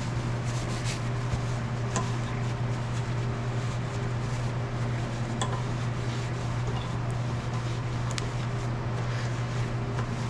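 Steady low hum with a few faint, light clicks of small metal parts being handled.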